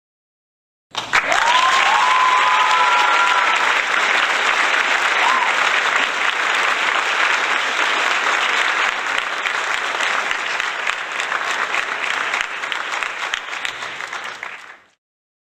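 Crowd applauding. A few cheers rise out of it in the first couple of seconds and once more about five seconds in. It starts abruptly about a second in and fades out near the end.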